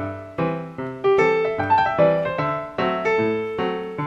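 Background piano music: notes and chords struck about twice a second, each fading away.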